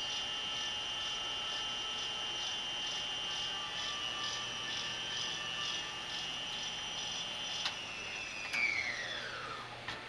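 1980s Speed Queen Maxi Load front-loading washing machine in its spin, the motor and drum giving a steady high whine with a faint pulse about twice a second. Near the end a click is heard and the whine falls steadily in pitch as the drum coasts down out of the spin.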